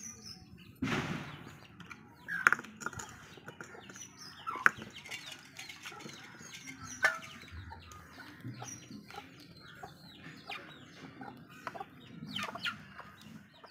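Chickens clucking now and then, with a short rustling rush about a second in and scattered light clicks and handling noises from boiled plantain skins being peeled by hand.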